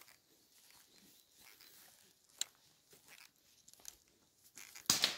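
Footsteps on dry grass and fallen leaves, light crackles with a sharper click partway through, then a short, loud rustle near the end.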